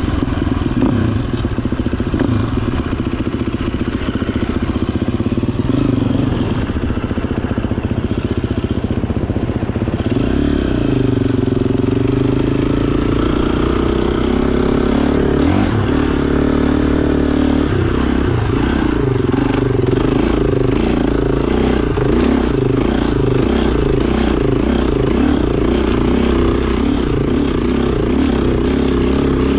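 Dirt bike engine running under load while riding up a dirt hill trail, its pitch rising and falling with the throttle. Short clattering knocks from the rough track come through in the second half.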